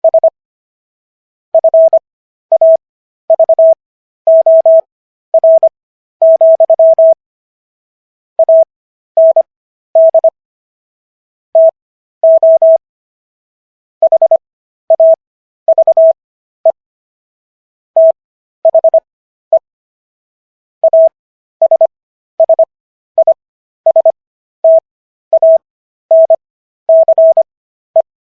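Morse code: one steady mid-pitched beep tone keyed on and off in dots and dashes. Characters are sent fast, at 25 words per minute, with stretched Farnsworth gaps between them for an overall 15 words per minute, spelling out the text of the Sixth Amendment.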